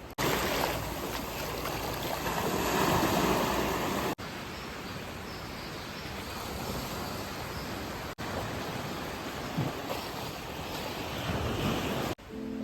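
Outdoor ambient noise: a steady rushing hiss, in several short takes joined by abrupt cuts about every four seconds.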